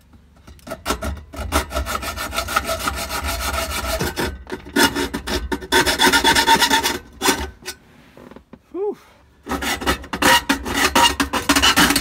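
Reciprocating saw (Sawzall) cutting through the steel dash crash bar supports, a fast rasping metal cut that runs for about seven seconds, pauses briefly, then starts again.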